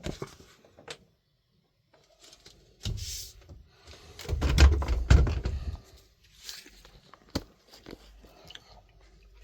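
Clicks, knocks and rubbing of a sharpening machine's abrasive disc being changed to a 1200-grit one, with the heaviest thumping about four and a half to five and a half seconds in and a sharp click near the end.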